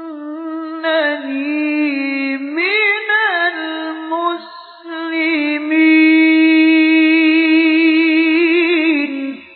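A male Quran reciter's voice in melodic tajwid recitation, drawing out long ornamented notes with gliding turns and a quick vibrato. It dips briefly about halfway, then holds a long high note that stops just before the end.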